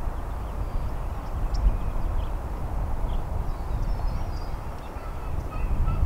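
Wind buffeting the microphone as an uneven low rumble, with faint, scattered short bird calls in the background.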